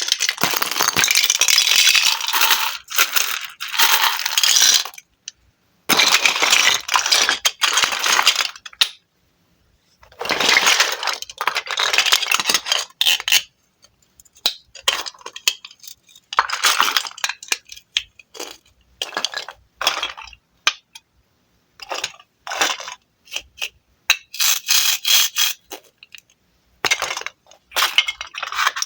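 A knife cutting through wooden toy fruit, in a run of crackly, scratchy strokes. The strokes range from short snips to slices of several seconds, with brief pauses between them.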